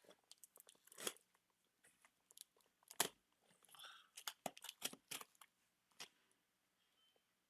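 Cardboard parcel being opened by hand: scattered crackles, clicks and scrapes of box and packing being handled, with one sharper snap about three seconds in.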